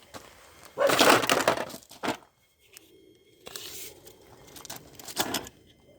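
Handling noise: a loud scraping rustle about a second in, then shorter scrapes and knocks near the end.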